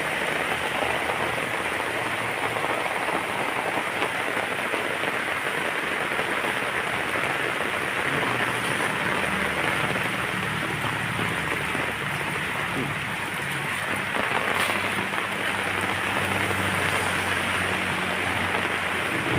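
Steady rain falling and pattering on surfaces, an even hiss throughout, with a faint low hum underneath in the second half.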